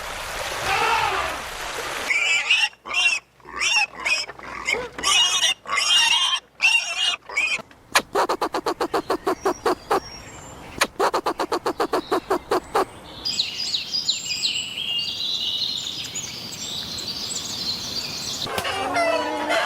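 A run of different farm-animal calls, one after another. First come short, broken calls, then two bursts of rapid pulsed calls at about ten a second. After that comes high bird chirping, and new calls begin near the end.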